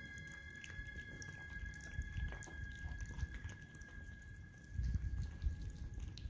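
Several cats eating chunks of wet cat food in gravy: quiet wet chewing and lapping, as many small scattered clicks and smacks. A louder low rumble comes in about five seconds in.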